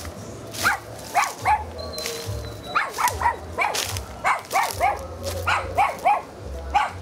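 A dog barking repeatedly, in quick runs of two or three barks.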